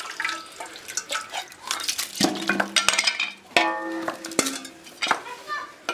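Machete blows cracking open fresh coconuts over an aluminium pot: a series of sharp knocks and metallic clinks.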